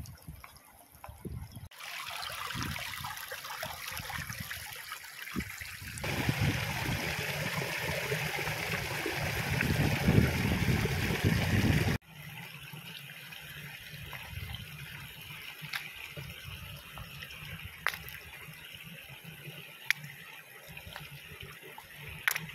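Shallow stream trickling over rocks. A fuller, louder rush of water for several seconds in the middle gives way suddenly to a softer trickle with a few small clicks.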